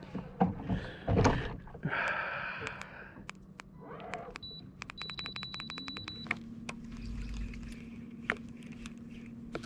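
A few knocks and clunks of gear against the boat, then a rapid run of electronic beeping and ticking. About six seconds in, an electric trolling motor starts and runs with a steady low hum.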